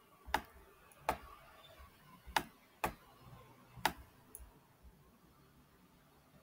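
Computer mouse clicking: five short, sharp clicks spread unevenly over about four seconds.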